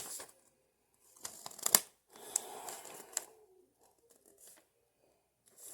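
Paper rustling as an instruction manual's pages are handled and turned: two rustles about a second each with a few sharp crackles, then a few faint rustles.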